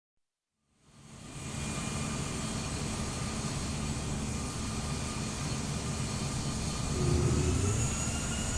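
Jet engine starting up: after a moment of silence a rushing noise fades in over about a second and then runs steadily, with faint high whining tones that rise slowly near the end.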